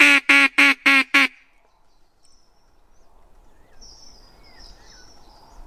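Duck call blown in a quick run of about five loud quacks, ending about a second in; a few faint bird chirps follow.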